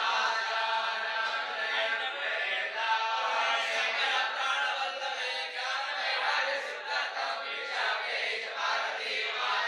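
A group of voices chanting a mantra together in unison.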